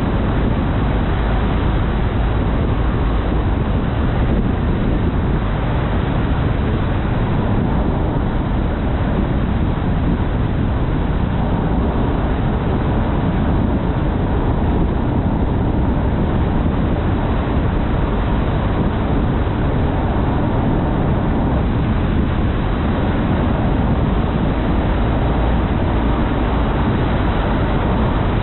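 Car driving along a highway: a steady, low rumble of road and wind noise.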